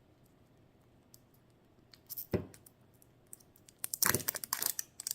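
Hard plastic toy capsule and its packaging being handled and prised at: a single sharp click about two seconds in, then a quick cluster of clicks and crinkling near the end.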